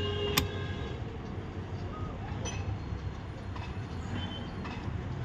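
A sharp plastic click about half a second in, then a few faint ticks and clicks as door wiring connectors and the trim panel are handled, over a steady low hum.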